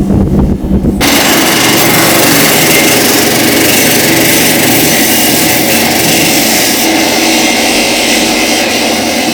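A power tool running steadily with a loud, even hiss. It sets in abruptly about a second in, replacing a lower rumbling machine sound.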